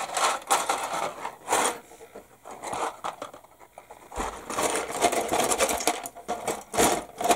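Plastic model-kit sprues clattering and scraping by hand in irregular bursts, with sharper clacks about a second and a half in and again near the end.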